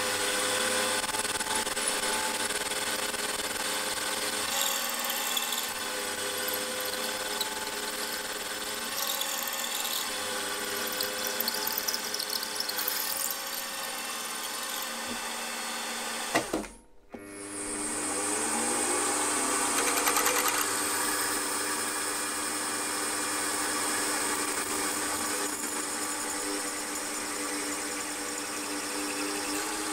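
Milling machine spindle running as a drill bit cuts through a cast iron piston to make the wrist-pin hole, a steady machine whine with the cutting noise over it. Just past halfway the sound cuts out briefly, then the machine runs on with a slightly different tone.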